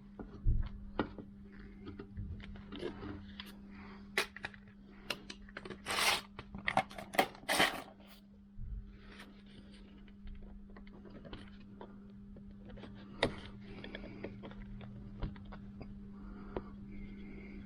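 Scattered clicks, taps and scrapes of hand work on small metal parts as a split pin on the Vespa PX's rear axle nut is pushed down and bent to clear the wheel cap. The loudest sounds are a few longer scraping rustles about six and seven and a half seconds in, over a steady low hum.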